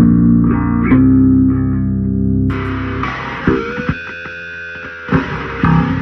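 Electric guitar playing metal. Held notes at first, then about two and a half seconds in a harsher distorted passage, and picked notes again near the end.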